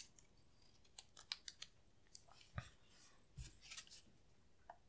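Faint, scattered clicks and light metal taps of a Beretta M9A4 pistol's slide, barrel and frame being handled and fitted back together, with two soft knocks about two and a half and three and a half seconds in.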